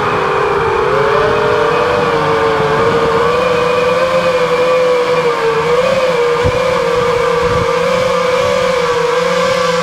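FPV quadcopter's brushless motors and propellers whining loudly, heard from the camera mounted on the drone. The pitch dips at the start and rises and falls a little with the throttle.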